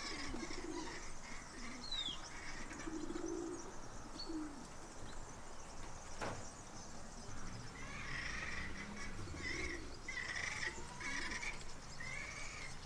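Fairly faint bird calls: low cooing calls now and then, a couple of quick chirps early on, and from about eight seconds in a run of short, evenly repeated chirps.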